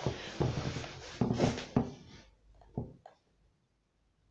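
Rustling and handling noise on a phone's microphone for about two seconds, then a few faint knocks, after which the sound drops out to silence.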